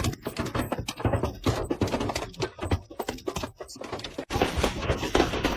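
Large hailstones striking hard surfaces in a rapid, irregular clatter of knocks. About four seconds in it cuts sharply to a denser, more even pelting.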